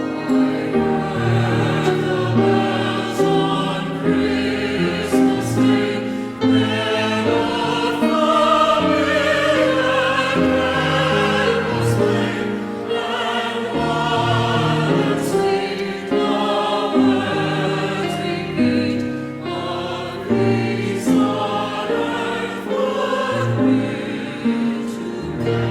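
Church choir singing with instrumental accompaniment, in long, held notes with vibrato.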